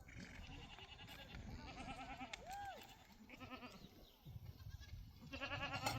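A flock of herd animals bleating, many quavering calls overlapping one another, loudest near the end.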